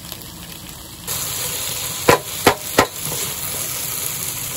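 Food frying in a pan on a portable gas burner: a steady sizzle that gets louder about a second in, with three sharp knocks in quick succession around the middle.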